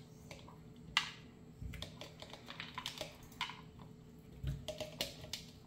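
Beet chunks dropped one by one into a plastic blender jar of liquid ingredients: a scatter of light taps and clicks with a few soft thuds.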